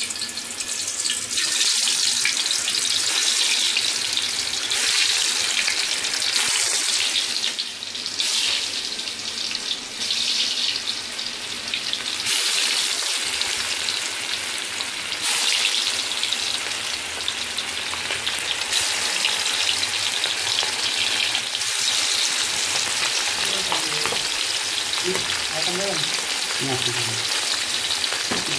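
Fish pieces frying in hot oil in a metal wok, a loud steady sizzle that swells again several times as more pieces are dropped in.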